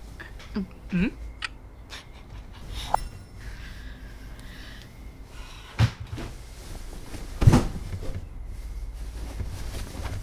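A person shifting about in bed in a quiet room: a few scattered soft knocks and thuds, the loudest two near six and seven and a half seconds in, with two brief low sighs about a second in, over a low steady hum.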